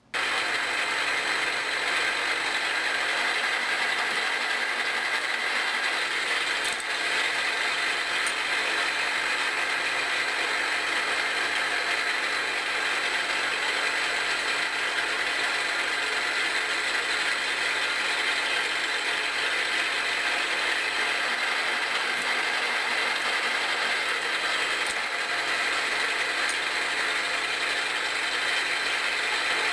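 Milling machine spindle running with a Tapmatic 30X self-reversing tapping head, a steady mechanical whir of the spindle and the head's gears made up of several steady tones over a hiss. It starts abruptly and stays even throughout.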